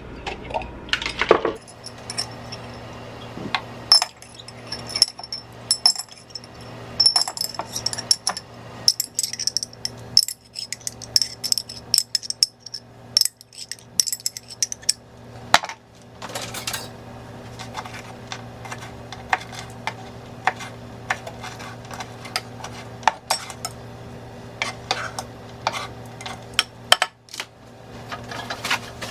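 Metal utensils clinking and scraping against a bowl in quick irregular knocks while a chopped-lettuce salad is added to and mixed, with a steady low hum underneath.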